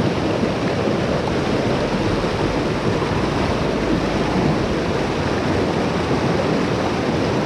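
Steady rush of a mountain trout stream's flowing water.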